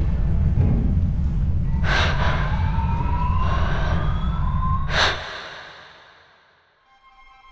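Dark film sound design: a loud low rumble with two sharp breathy bursts about three seconds apart and a slowly rising whine between them. The rumble then fades away, and soft string music begins near the end.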